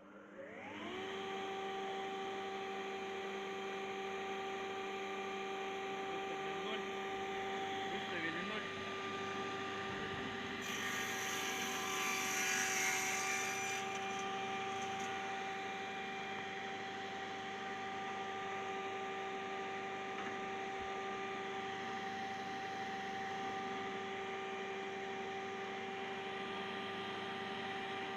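Belmash SDMR-2500 MAX combination woodworking machine's motor and saw blade spinning up with a rising whine, then running at a steady hum. Roughly halfway through, the circular saw cuts through the board for about three seconds, trimming its end, before running free again.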